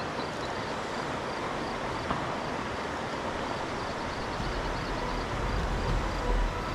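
Steady rush of flowing river water. A low rumble builds in the second half.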